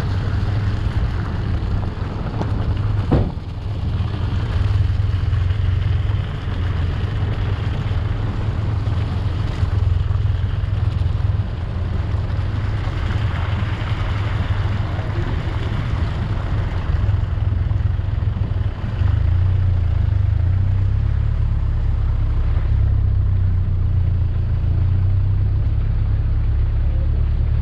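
An off-road 4x4 driving along a rough track, heard from on board as a steady low engine and drivetrain drone. There is a single sharp knock about three seconds in, and the drone grows a little louder and steadier about two-thirds of the way through.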